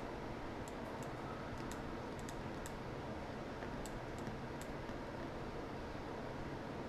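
Irregular, scattered clicks from a computer keyboard and mouse, mostly in the first five seconds, over a faint steady room hum.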